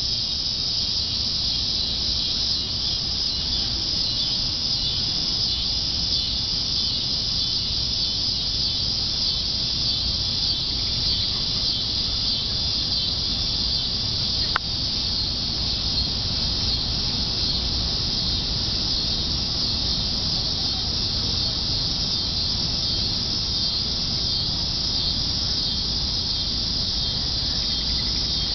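Steady, unbroken chorus of night insects such as crickets, high-pitched and even throughout. A single sharp click about halfway through.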